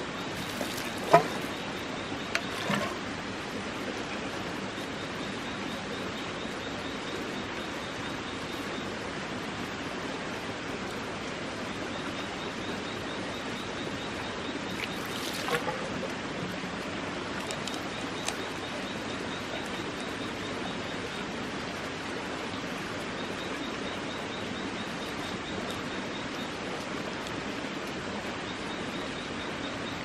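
Steady rushing, stream-like water noise, with a faint, fast high chirping repeating over it at intervals. A few soft knocks come near the start and about halfway through.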